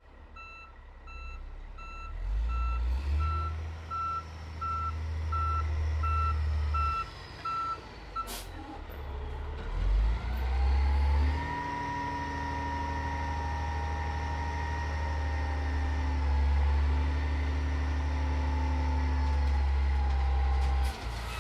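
Diesel truck reversing with its backup alarm beeping about one and a half times a second over the engine's low rumble. The beeping stops with a sharp click a little after eight seconds. The engine then rises and holds a steady load, with a high steady whine over it.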